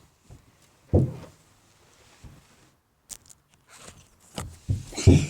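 Dull, heavy thumps, one about a second in and another near the end, with scattered lighter knocks and clicks between them.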